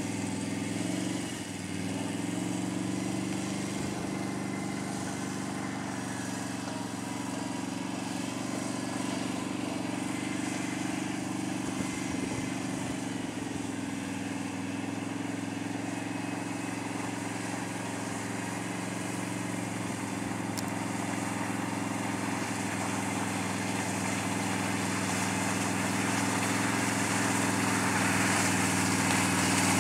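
Can-Am Outlander 650 Max ATV's Rotax V-twin engine running at low, steady revs as the quad is ridden slowly. It grows louder over the last few seconds as the machine comes closer.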